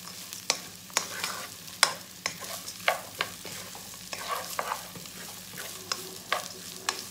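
Spatula stirring and scraping rice in a nonstick pan, with irregular taps and scrapes over a light sizzle: the rice is being fried in ghee for pulao. A steady low hum runs underneath.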